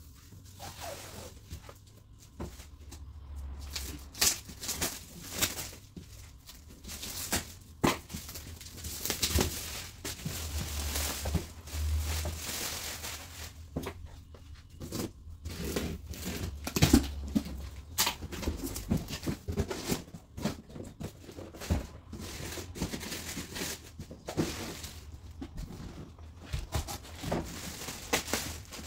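Shrink-wrapped cardboard box being unwrapped and opened by hand: irregular crinkling and tearing of plastic film, cardboard scraping and knocks, then the rustle of a clear plastic bag as the feeder tray inside is pulled out.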